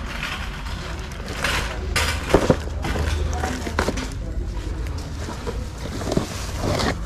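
Shop ambience: faint background voices and handling noise over a low hum, with two sharp knocks in quick succession about two and a half seconds in.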